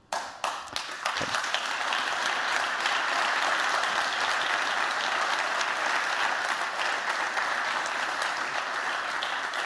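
Audience applause: a roomful of people clapping, starting suddenly and building within about a second to a steady, dense level.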